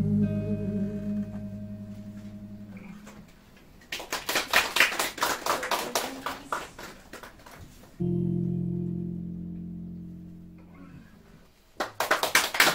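A band's final chord on electric bass, archtop guitar and keyboard rings out and fades, followed by a few seconds of clapping from a small audience. About eight seconds in, a second held chord is struck and fades away, and the clapping starts again near the end.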